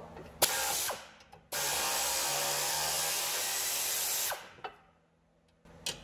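Power ratchet running, in one short burst and then a steady run of about three seconds, spinning out a brake caliper-mount bolt.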